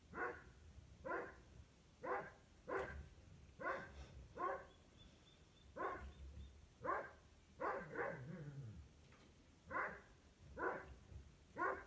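Anatolian shepherd dog barking at a gemsbok: single barks about once a second, with two brief pauses, one bark near the middle drawn out and falling away. Heard through a window pane.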